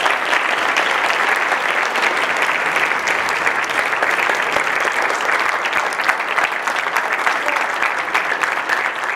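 Audience applauding: sustained clapping from many hands.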